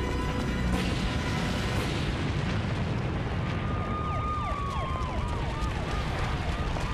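An explosion and burning fire: a dense, continuous rumbling blast. About halfway through, a wailing siren comes in with repeated swooping tones over it.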